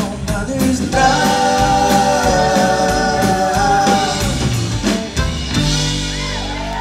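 Live band — fiddle, electric guitar, bass guitar and drums — playing the end of a song, with drum and cymbal hits under held notes, then settling onto a held final chord about five and a half seconds in, the fiddle sliding over it.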